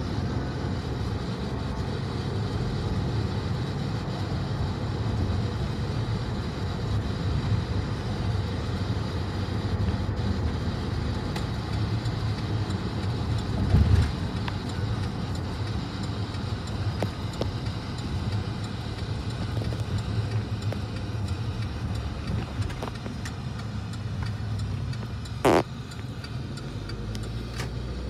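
Steady low rumble of tyre and engine noise inside a moving car's cabin. A louder low thump comes about halfway through, and a short sharp knock near the end.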